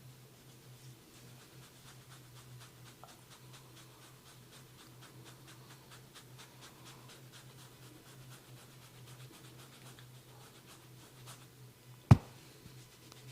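Fingers rubbing and scratching through hair and scalp in a faint, quick scratchy rustle over a low steady hum, then about twelve seconds in a single sharp, loud crack of a joint being cracked during the massage.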